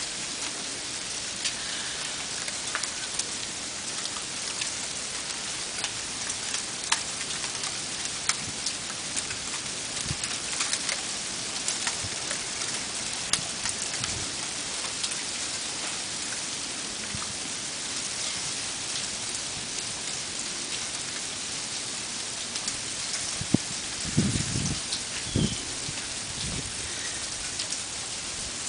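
Sleet falling steadily: an even hiss of pellets with many sharp ticks as they hit surfaces. A few dull low thumps come near the end.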